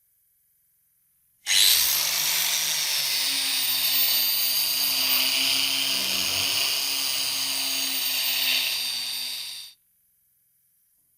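Small high-speed power tool, drill-like, running steadily with a high-pitched whir for about eight seconds. It starts abruptly about a second and a half in and cuts off near the end.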